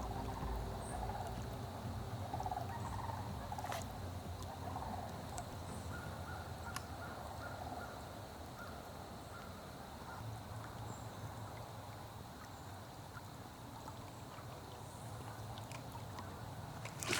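Steady rushing noise of a river, with a few faint bird calls in the first seconds and a short run of quick, faint pips around the middle.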